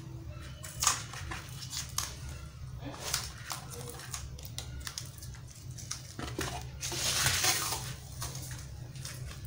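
Masking tape being peeled off the roll and wrapped around the sticks of a plastic fan handle, with light clicks and rustles of handling. About seven seconds in comes a longer rasp of tape pulled off the roll.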